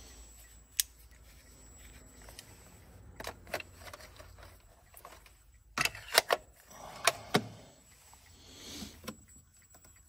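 Scattered small clicks and taps of hands working multimeter probes on a car's wiring connector. There are single clicks in the first few seconds and a quick cluster of them about six seconds in.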